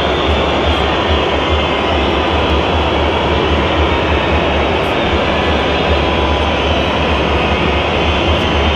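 Steady, loud din of a football stadium crowd during play, with a deep rumble underneath.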